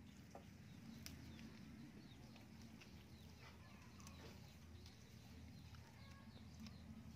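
Near silence: faint outdoor ambience, a low steady rumble with scattered faint ticks.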